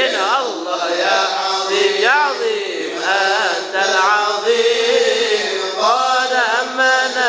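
Men's voices singing an Arabic devotional qasidah into a microphone, with long wavering lines and curling melodic ornaments. No drum or other instrument is heard.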